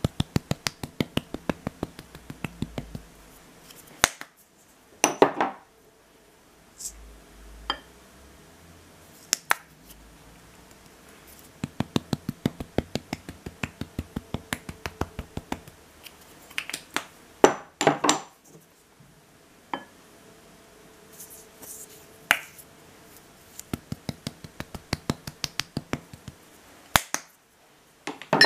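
Spice shaker jars shaken over a glass bowl of raw chicken: three runs of quick ticking shakes, about five a second, each lasting a few seconds. A few louder knocks and clinks come between the runs as the jars are handled.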